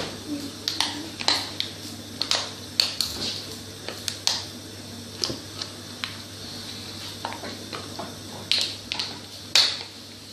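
Irregular clicks and knocks as a set chocolate fidget spinner is worked out of its mould, with a couple of louder knocks near the end.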